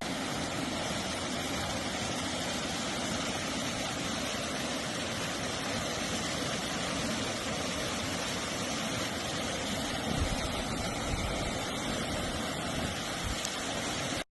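Hurricane wind and rain: a steady, even rushing noise with no breaks.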